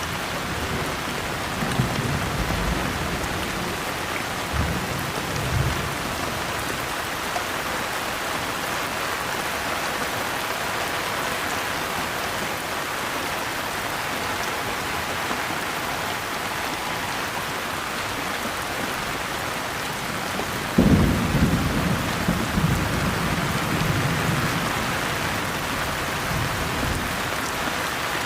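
Steady rain with rolls of distant thunder: low rumbles about two and five seconds in, and a stronger, sudden clap about 21 seconds in that rumbles away over the next few seconds.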